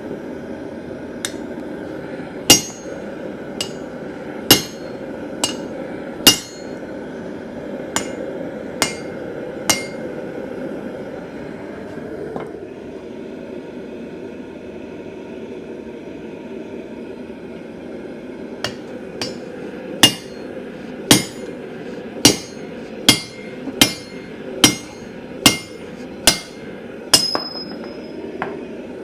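Hand hammer striking hot steel on an anvil while forging a speed handle. There are about nine sharp, ringing blows, a pause of several seconds, then a run of about a dozen at roughly one a second, over a steady rushing noise.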